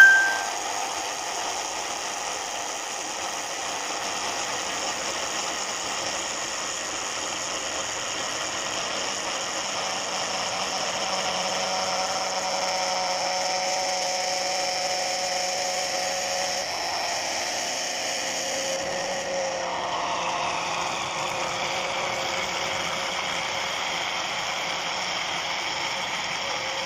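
Electric blender motor running steadily, whipping eggs and oil into a thick mayonnaise-style sauce while oil is trickled in. Its whine dips slightly in pitch about two-thirds of the way through. A short ding sounds at the very start.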